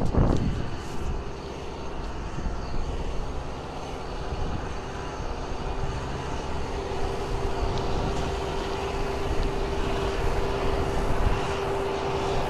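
Kubota M6040SU tractor's diesel engine running steadily under load as the tractor pulls through deep mud, with a steady whine growing stronger in the second half.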